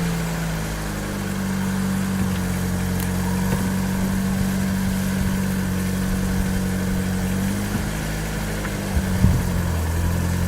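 Crash-damaged Mitsubishi Carisma's engine idling steadily in the cold, its pitch stepping up slightly about half a second in and settling back lower near the end, with a short knock just before the drop.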